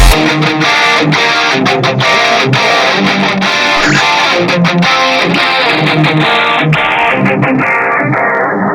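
Backing music: a guitar-led instrumental beat with a steady rhythm. The deep bass drops out at the start, and the sound grows gradually duller as the treble is filtered away toward the end.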